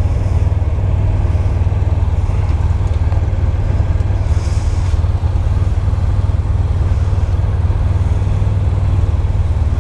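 Motorcycle engine idling while stopped, a steady low rumble.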